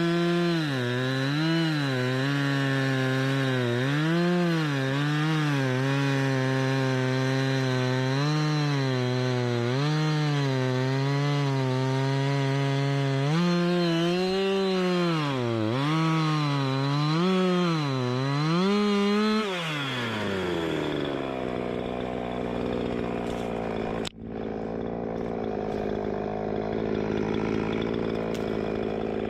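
Two-stroke chainsaw running at full throttle, its pitch dipping and recovering again and again as it bogs in a cut, then falling to a lower, steadier idle about two-thirds of the way through.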